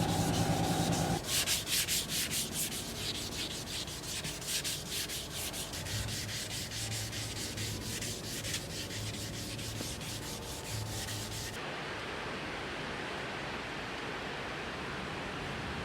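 Sandpaper being rubbed back and forth by hand over a car body panel, in quick even strokes of several a second. A steady low hum stops about a second in, and near the end the strokes give way abruptly to a steady hiss.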